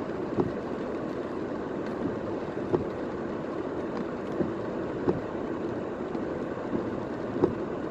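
Car driving on a wet road in the rain, heard from inside: a steady rush of tyre and rain noise, with a few short sharp ticks spread irregularly through it.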